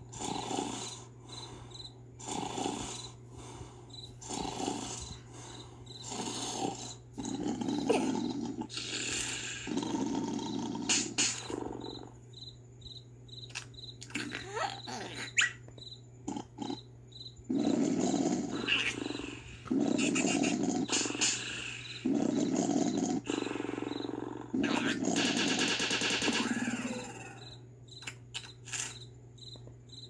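Cartoon larva character snoring: exaggerated animated snores, short ones about once a second at first, then longer drawn-out snores in the second half, over a steady low hum.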